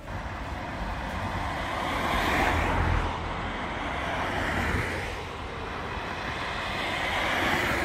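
Road traffic: cars passing by, the rushing tyre and engine noise swelling and fading as each one goes past.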